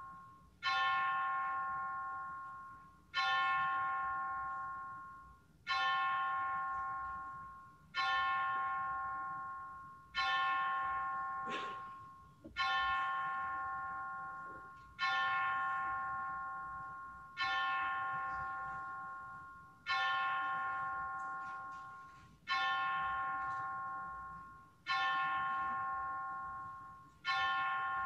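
A single bell tolled slowly in a memorial toll for the fallen, struck about every two and a half seconds at the same pitch, each strike ringing out and fading before the next.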